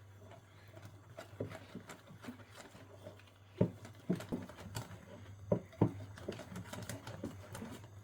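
Hand whisk mixing besan (gram flour) batter in a bowl, with irregular taps and knocks of the whisk against the bowl, louder from about halfway through. A low steady hum runs underneath.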